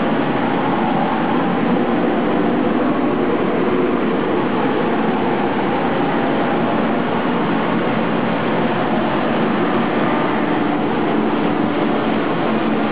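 Broom flagging and trimming machine running, its motors and chain conveyor making a steady, continuous mechanical noise with a faint low hum.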